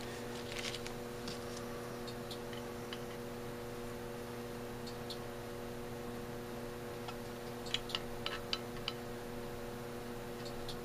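Light metal clicks and taps of a steel rule and parts handled against a carburetor body while its brass float level is checked: a few about a second in, then a quick cluster around eight seconds in. A steady low electrical hum runs under them throughout.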